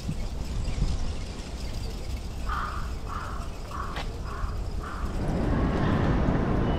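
A crow cawing five times in quick, even succession over a constant low background rumble that grows louder just after the calls.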